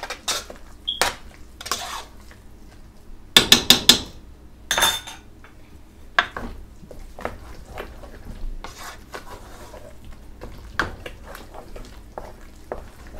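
Utensils clinking and scraping against a cooking pot as mashed potatoes are mashed and stirred, with a quick run of four sharp knocks about three and a half seconds in.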